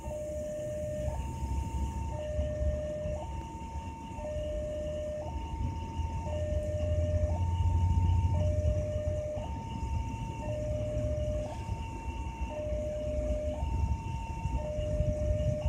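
The Jayabaya train rolls slowly past with a steady low rumble that swells in the middle. Over it, an electronic two-tone warning signal alternates evenly between a low and a high note, changing about once a second.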